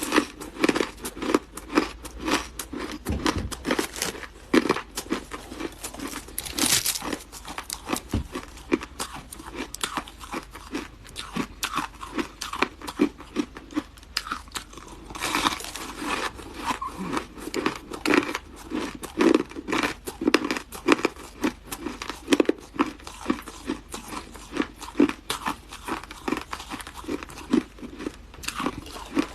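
Close-miked crunching and chewing of hard ice: dense, sharp cracks as chunks are bitten and ground between the teeth, with louder crunches a few times a second.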